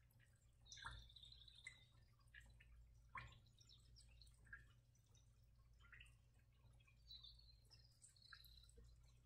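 Near silence: low steady room hum with faint, irregular small ticks scattered through it.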